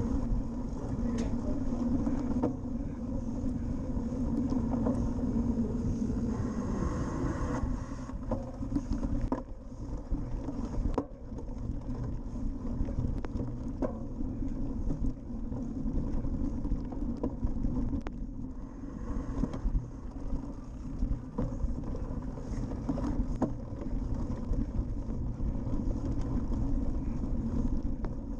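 Wind buffeting the microphone of a camera on a cyclocross bike ridden at about 20 km/h, with tyre rumble over sand and grass and scattered knocks as the bike hits bumps.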